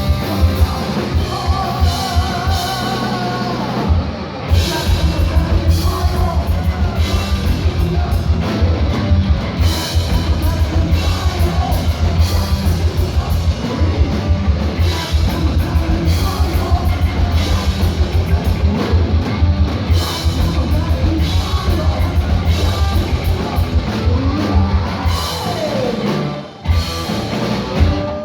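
Heavy metal band playing live: a drum kit with rapid bass-drum beats under distorted electric guitar, with wavering, sliding lead guitar lines near the start and again near the end.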